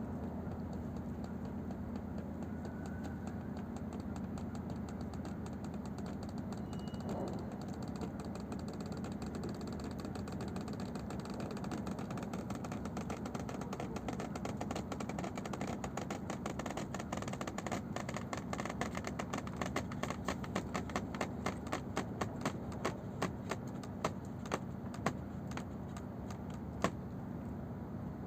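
A moored nuclear icebreaker creaking. Over a steady low hum, a run of sharp creaks and clicks starts about halfway through, quickening and growing louder toward the end, with one loud crack near the end.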